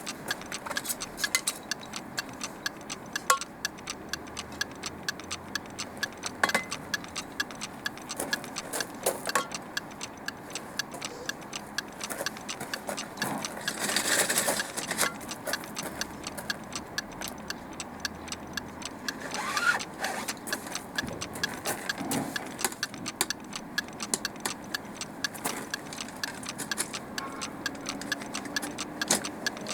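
A clock ticking steadily, about two ticks a second, with scattered clicks and rustling from handling things, loudest in a brief rustle about halfway through.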